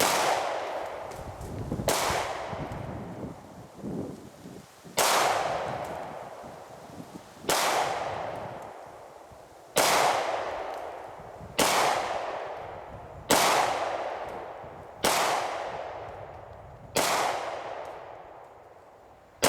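Beretta 92FS 9mm pistol firing SIG Sauer 124-grain jacketed hollow points, one shot about every two seconds for about nine or ten shots. Each sharp report is followed by a long fading echo.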